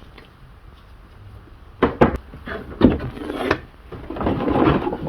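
Unpacking noises from the Starlink power cable and its packaging: a few sharp knocks about two and three seconds in, then rubbing and rustling as the cable is handled.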